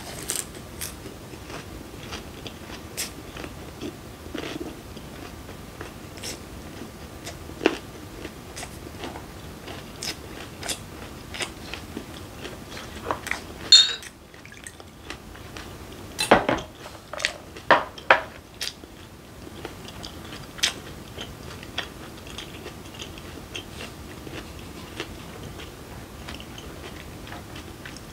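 Close-up chewing and crunching of a lettuce and perilla-leaf wrap of raw fish and squid, with frequent small clicks. Around the middle come a few louder sharp glass knocks as soju is poured from the bottle into a shot glass.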